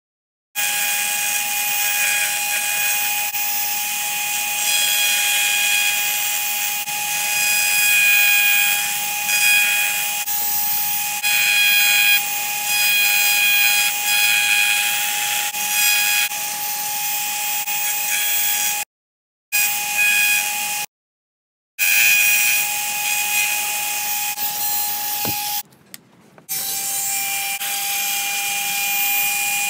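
Dremel rotary tool running with a steady high whine while its engraving bit grinds into a clear disc. The grinding swells and fades as the bit is worked along the pattern. The sound cuts out abruptly a few times.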